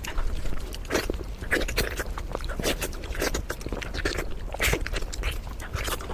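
A person chewing and biting food close to the microphone: irregular short mouth and food sounds, several a second.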